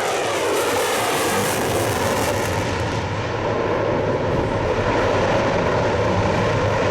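F-35C Lightning II's single F135 turbofan jet engine passing overhead: its pitch falls during the first second, the high hiss drops away about three seconds in, and a steady jet noise carries on.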